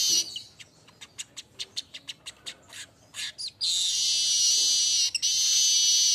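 Manyar weaver singing: a series of short sharp clicking notes, about four or five a second, then about three and a half seconds in a loud, dense, buzzy high-pitched song that runs on with only brief breaks.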